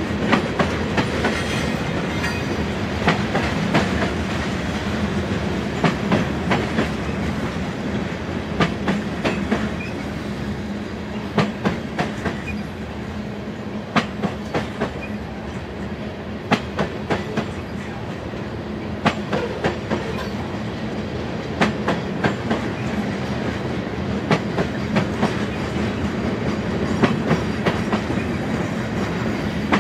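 Freight train of covered hoppers and tank cars rolling steadily past, with a continuous rumble and wheel clicks that come in pairs about every two and a half seconds as each car's trucks pass.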